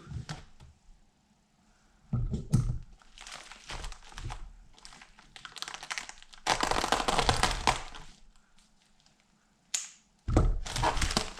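Packaging being handled and opened: irregular rustling and crinkling with knocks and thunks, in several bursts separated by quiet gaps, the longest and loudest about halfway through.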